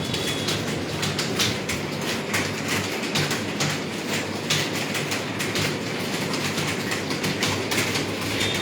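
Computer keyboards being typed on: rapid, irregular key clicks, several a second, over a steady low hum.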